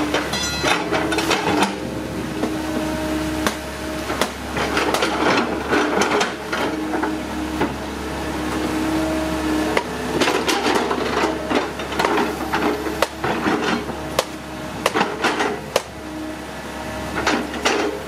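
Excavator at work: its diesel engine runs steadily under an irregular string of sharp knocks and clanks.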